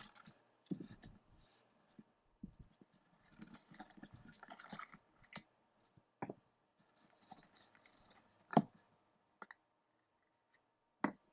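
Hands working at the packaging of a sealed box of hockey trading cards: scraping and rustling with sharp clicks and snaps, the box proving hard to get open.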